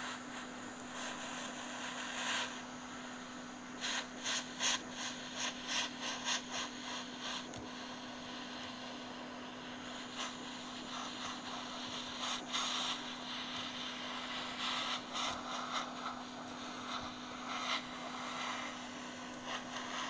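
Hot air rework station blowing steadily with a low hum and air hiss, while an adhesive snap-dome sheet is peeled off a remote control's circuit board, crinkling and crackling in several irregular spells as the heat-softened glue lets go.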